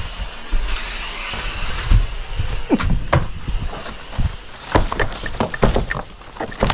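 Insecticide fogging spray hissing out of an aerosol can in a long burst that stops about two seconds in, followed by a run of short knocks and bumps.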